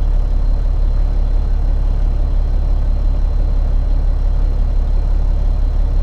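Peterbilt 379's diesel engine running steadily at low speed, a constant low drone heard inside the cab.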